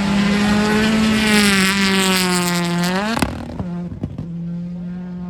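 Rally car engine held at high revs, its pitch climbing just before a sharp crack about three seconds in. After the crack the engine note drops to a quieter, lower steady tone, with a few short bangs.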